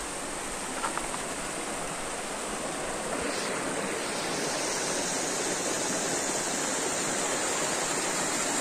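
Waterfall water rushing down over rock into a pool: a steady rush of water that grows a little louder about four seconds in.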